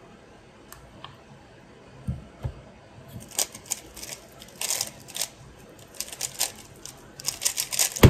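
Ball Core Super RS3 M 3x3 speed cube being turned very fast in a sub-five-second speedsolve: a dense run of rapid plastic clicking and clacking starting about three seconds in, after a couple of soft thumps. It ends with hands coming down on the stackmat timer to stop it.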